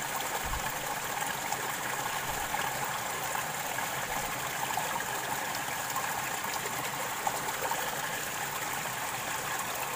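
Shallow rocky stream running steadily over and around stones, an even babble of water.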